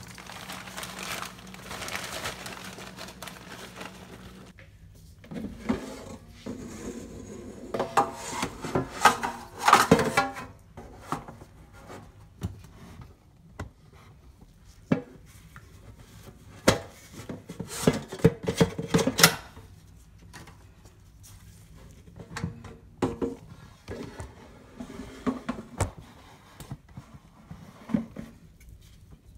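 Metal air-fryer basket being handled and set into the fryer: scattered clatters and knocks of metal and plastic. The loudest bunches come about eight seconds in and again around eighteen seconds.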